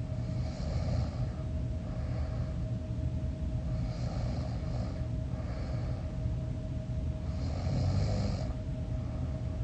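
A sleeping person snoring, three snores about three and a half seconds apart with the last one loudest, over a steady low hum.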